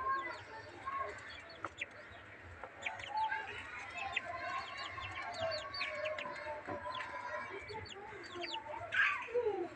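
Young chickens and quail calling together: many short, high peeps with softer warbling trills beneath, and one louder call sliding down in pitch about nine seconds in.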